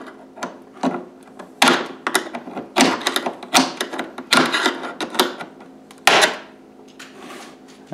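Flat-blade screwdriver prying at the plastic retaining clips on a Jeep Wrangler TJ's plastic console subwoofer housing: irregular scrapes and sharp clicks as the clips are forced off, which breaks them.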